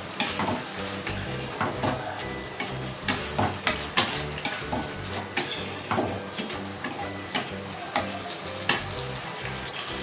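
A spatula stirring and scraping in a pan of frying onion, capsicum and spices with soy and tomato sauce, the food sizzling under irregular knocks of the spatula against the pan.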